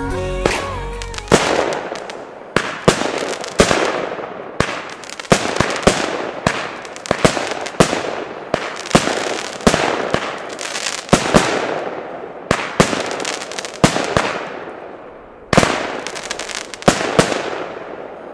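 Nico 'Schwester Pyro' firework battery (cake) firing shot after shot: a run of sharp bangs, about one or two a second, each trailing off as its burst fades. There is a short pause near the end before a loud shot restarts the run. Background music stops about a second in.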